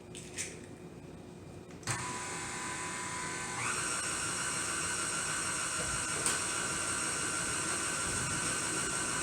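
KitchenAid stand mixer motor switching on about two seconds in and running with a steady whine, stepping up in speed and loudness a couple of seconds later as it beats the eggs into the batter.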